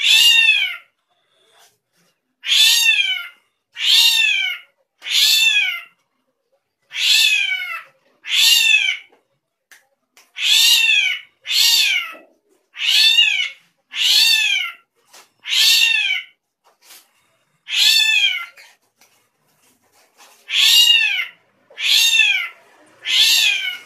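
A drongo (srigunting) giving a long series of mewing, cat-like calls. Each call lasts under a second and arches up and then falls in pitch. The calls come in runs of two to four with short pauses between them.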